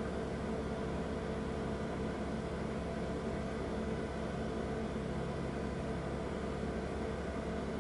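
Steady machine hum: a constant drone with a few fixed tones over an even hiss.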